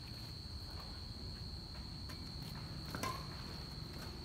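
Steady high-pitched trill of crickets, with a few faint taps of racket on shuttlecock from a badminton rally about two and three seconds in.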